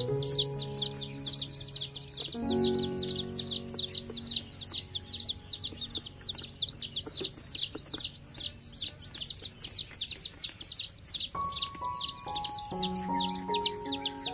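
A brood of baby chicks peeping without pause, many short calls a second, each falling in pitch. Soft background music with sustained notes plays underneath.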